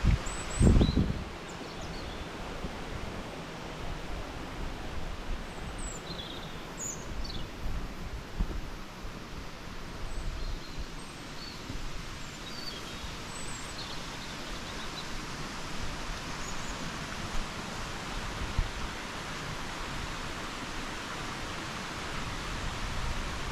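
Steady rushing of a waterfall, with scattered short chirps and whistles of birds above it.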